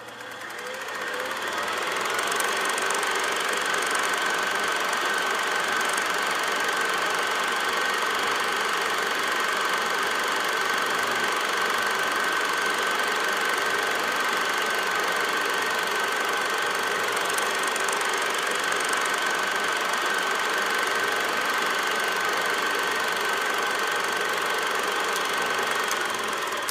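A steady mechanical running sound, like a small machine clattering rapidly, with a constant high-pitched whine over it. It fades in over the first couple of seconds and fades out near the end.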